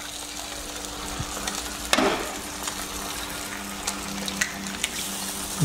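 Eggs frying in hot oil in a wok: a steady sizzle with scattered crackles and pops, and a brief louder burst of sizzling about two seconds in.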